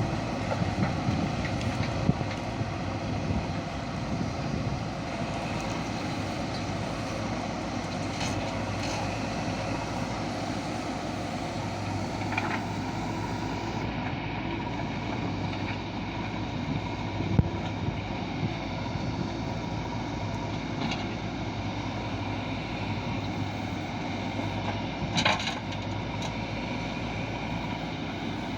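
Diesel engine of a JCB 3DX backhoe loader running steadily while working, with a few sharp knocks, the loudest about two thirds of the way through and another near the end.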